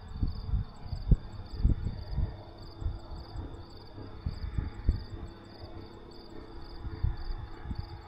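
Crickets chirping in a steady rhythm, about two chirps a second, over a constant high insect trill. Irregular low gusts of wind buffet the microphone and are louder than the insects.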